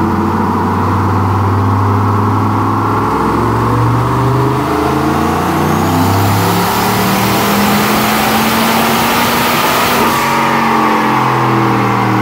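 Turbocharged LS V8 (a 5.3 bored to 5.7) in a K5 Blazer making a full-throttle pull on a chassis dyno. It runs steadily for a few seconds, then climbs in pitch under load with a rising hiss, and lets off sharply about ten seconds in.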